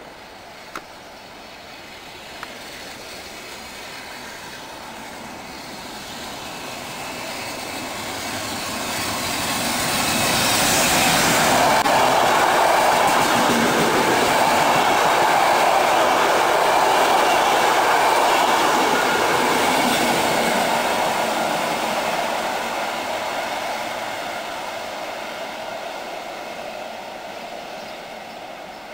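Electric locomotive-hauled passenger train passing through a station at about 80 km/h on a speed restriction. The rumble of wheels on rail builds as it approaches, is loudest for several seconds while the coaches run by, then fades away.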